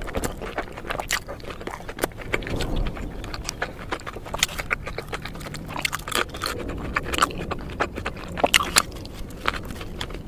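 A person chewing and biting into a turkey ham, steak and cheese sandwich, with many sharp, irregular mouth clicks.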